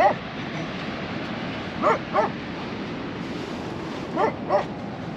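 A dog barking in short, yipping barks: one bark, then two pairs of barks about two seconds apart, over a steady background rush.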